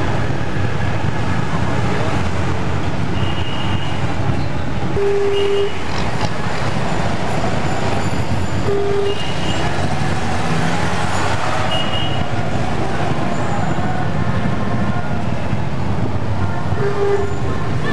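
Dense city traffic heard from inside a moving taxi: steady engine and road noise, with short car horn toots from the surrounding traffic several times, a few seconds apart.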